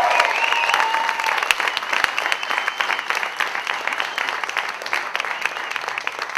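Audience applauding, with a few cheers and whoops in the first second or so. The clapping slowly fades.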